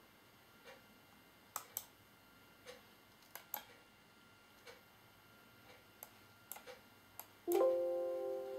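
Scattered light clicks as a laptop is worked. Near the end a short chime of several notes at once rings out suddenly and fades away over about a second.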